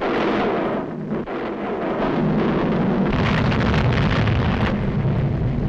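Sound effect of a volcano erupting in a 1940s animated cartoon: continuous rumbling explosion noise that grows louder about three seconds in.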